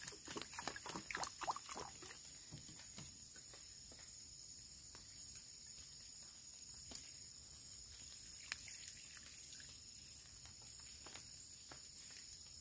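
Water glugging and splashing as it is poured from a plastic jerrycan into a metal pot of rice, for about the first two seconds. After that, faint scattered clicks over a steady high insect drone.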